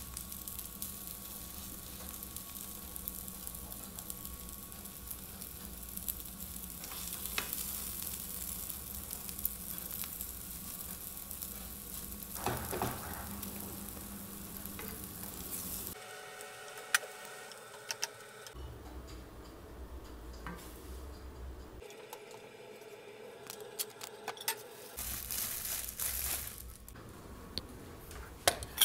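Scrambled eggs sizzling in a nonstick frying pan, stirred with a slotted spatula that scrapes and taps the pan. About sixteen seconds in the steady sizzle breaks off, and scattered clicks and clinks follow with a brief return of sizzling near the end.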